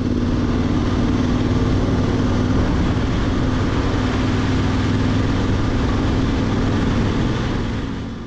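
Adventure motorcycle engine running at a steady highway cruise, with wind and road rush; the sound drops away near the end.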